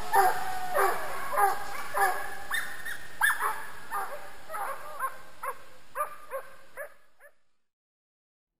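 Hunting dogs barking and baying, about two barks a second, growing fainter and then cutting off abruptly about seven seconds in. The pack is giving tongue on the trail of a wounded wild boar.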